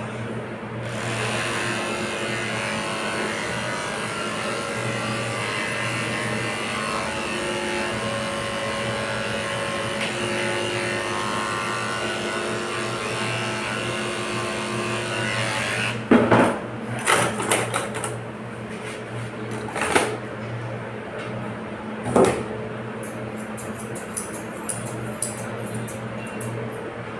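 Corded electric dog clippers running with a steady hum as they shave a Pomeranian's coat. The clippers stop about sixteen seconds in, a few sharp knocks follow, and near the end there are quick light snips of grooming scissors.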